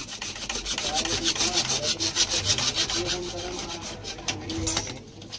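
A hand-held hacksaw blade cutting through a CPVC pipe, with rapid, even back-and-forth strokes. The sawing eases off near the end.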